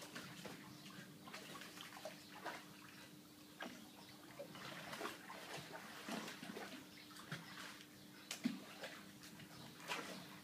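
Water sloshing and splashing irregularly in a plastic kiddie pool as two dogs move about in it, with one sharper splash about eight seconds in.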